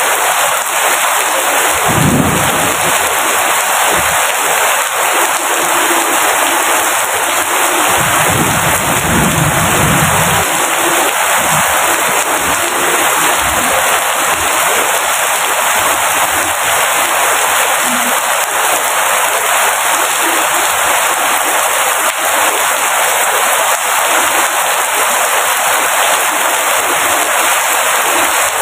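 Steady, dense downpour of heavy rain, an even hiss with no let-up. There are two brief low rumbles underneath, about two seconds in and again around eight to ten seconds in.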